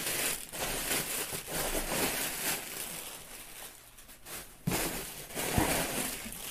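Packing material rustling and crinkling as it is pulled out of a shipping box, with irregular crackles and a louder burst of handling about five seconds in.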